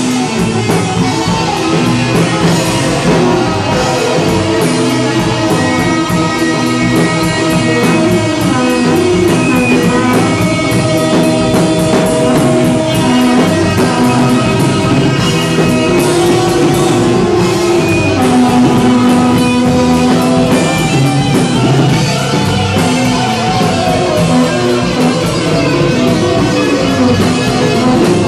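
Live band playing loud rock: guitar with long held notes over drums.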